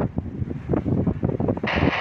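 Strong wind buffeting the microphone in irregular gusts over choppy sea. Near the end there is a short, even hiss of under a second that starts and stops abruptly.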